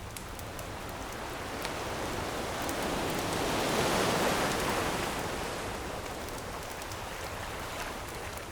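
An ocean wave surging in on the shore, building to a peak about four seconds in and then washing back, with a few faint crackles from a wood fire.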